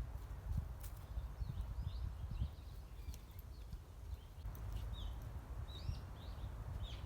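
Small forest birds chirping in many short, quick calls, over an uneven low rumble.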